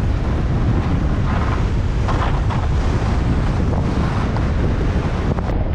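Wind buffeting a GoPro's microphone as a skier runs fast down a groomed piste, a steady rumbling rush, with the hiss of skis sliding on packed snow.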